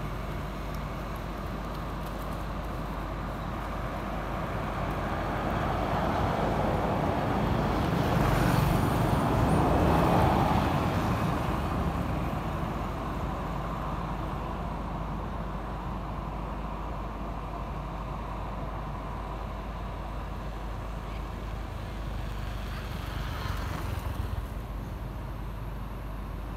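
Road traffic: a steady hum with low rumble, and one vehicle passing that swells to its loudest about ten seconds in, then fades away.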